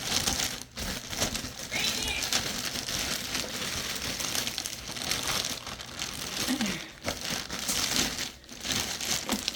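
Plastic packaging crinkling and rustling as it is handled.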